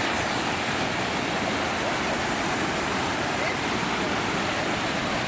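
Waterfall rushing steadily, a loud even roar of falling water.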